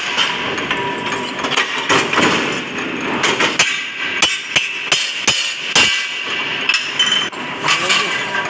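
Power press shearing a mild steel angle bar: an uneven series of sharp metal clanks and bangs, coming thickest in the middle.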